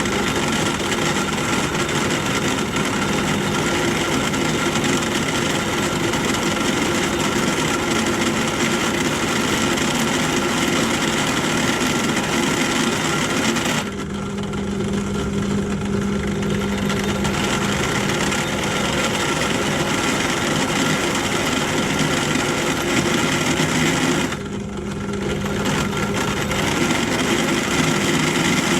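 Pillar drill running at about 1320 RPM, cutting into a steel sprocket blank, with a steady motor hum under the cutting noise. The cutting noise drops away briefly twice, about 14 and 24 seconds in, while the drill keeps running.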